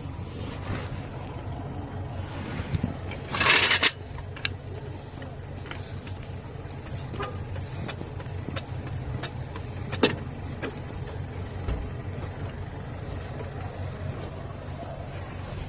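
A vehicle engine idling with a steady low hum. About three and a half seconds in there is a short, loud hissing burst, and a few sharp metallic clicks come later.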